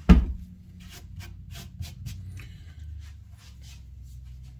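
A thump, then light scratchy brushing and scattered small ticks as cork and wood drilling debris is swept off the roadbed.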